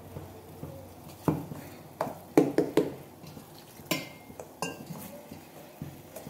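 A metal utensil stirring dry gram flour and semolina in a stainless steel bowl, scraping, with sharp clinks against the steel. The clinks come in a quick cluster about two to three seconds in, and a couple near the four-second mark ring briefly.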